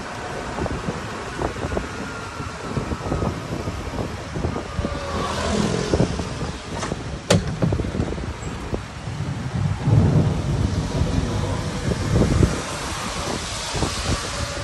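Ride in an open golf cart: wind buffeting the microphone over a steady rumble of the wheels and frequent rattles and knocks, with one sharp click about seven seconds in.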